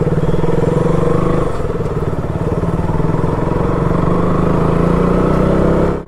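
Motorcycle engine running steadily at low road speed, its exhaust pulses even and unbroken.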